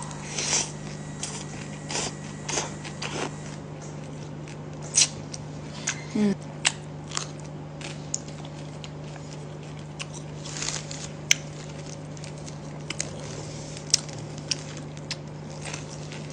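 Close-up eating sounds from a mouthful of noodles and greens: chewing, with irregular short wet clicks and lip smacks. A steady low hum runs underneath.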